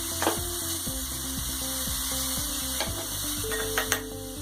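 Grated beetroot and cauliflower frying in hot oil in a pan, stirred with a spoon that knocks against the pan a few times. Soft background music plays under it.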